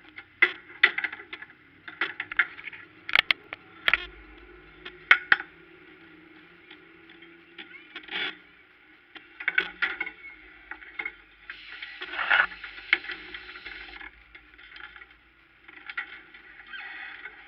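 Irregular clicks, knocks and light rattles inside a parked race car's cockpit, densest in the first few seconds, with a rustle of something brushing close by about twelve seconds in. The engine is not running.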